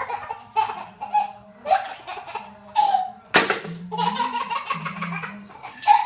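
A baby laughing in short repeated bursts of giggles, with one sudden, louder burst about three and a half seconds in.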